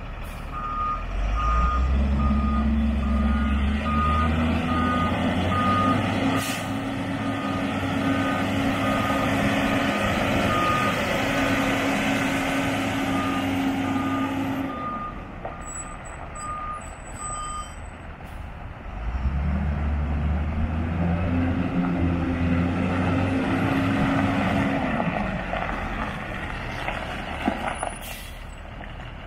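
Doosan D160S-5 forklift's 5.9-litre six-cylinder turbo-diesel revving up under throttle about a second in, holding high revs, dropping back about halfway, then revving up again before settling near the end. Its reversing alarm beeps steadily, a little over once a second, through the first half.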